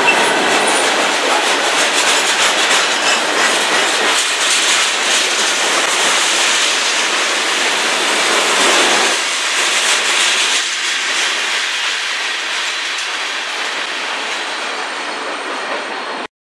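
Freight train cars (tank cars and covered hoppers) rolling past close by, wheels clattering over the rail joints with a steady rolling rumble. The sound fades gradually over the last several seconds as the end of the train goes by, then cuts off suddenly near the end.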